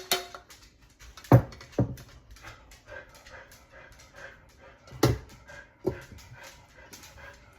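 A kitchen utensil knocks sharply against a pan about five times while enchilada sauce is spread over enchiladas in a baking dish. Softer, quickly repeating scraping and dabbing sounds come between the knocks.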